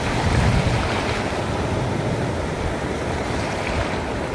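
Ocean surf breaking and washing ashore, a steady rushing wash with a low rumble of wind on the microphone.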